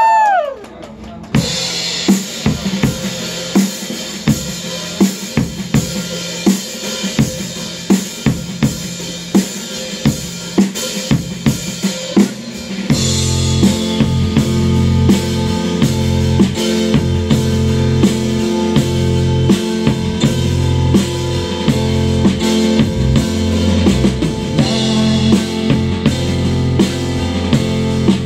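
Rock band's instrumental intro: a drum kit plays a steady beat of kick and snare hits, and about halfway through bass and electric guitar join with sustained chords.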